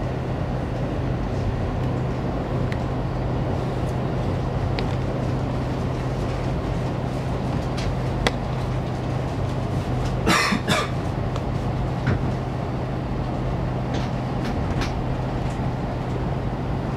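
Cabin noise of a moving train: a steady rumble with a constant low hum and a few faint clicks. About ten seconds in there is a brief, louder noise, two quick pulses close together.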